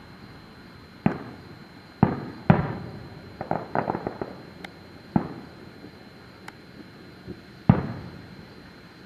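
Fireworks going off: single booms about a second in, then at two and two and a half seconds, a quick run of crackling pops around three and a half to four seconds, another boom just past five seconds and a last loud one near eight seconds.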